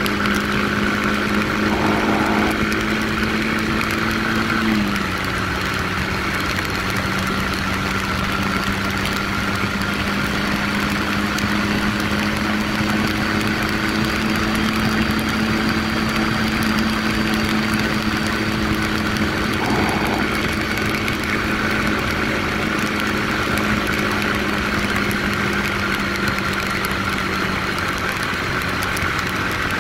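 Small 150 cc Yamaha motorcycle's single-cylinder engine running steadily at highway cruising speed, with wind and tyre noise from the wet road. The engine note drops a little about five seconds in as the bike slows, then holds steady.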